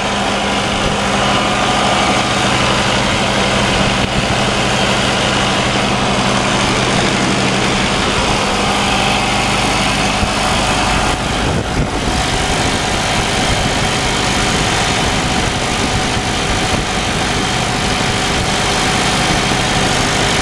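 Perkins diesel generator set running steadily at constant speed.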